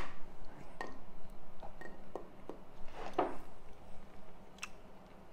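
Stainless steel watch bracelet handled in the fingers, its links and clasp giving several light, scattered clicks and clinks.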